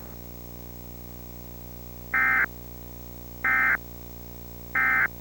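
Emergency Alert System end-of-message signal: three short bursts of warbling digital data tones, about a second and a half apart, marking the end of the alert, over a steady low hum.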